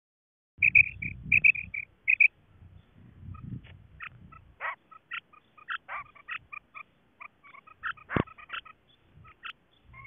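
Female common quail calling: a quick, uneven series of short high notes, some with a lower note beside them, starting about half a second in. A low rumble runs under the first few seconds, and there is a sharp click past the middle.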